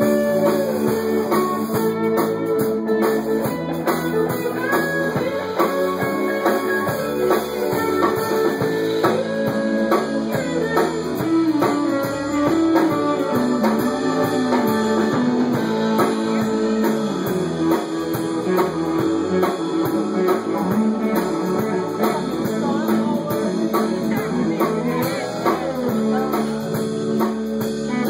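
A band playing an instrumental passage: guitars with a drum kit keeping a steady beat, no singing.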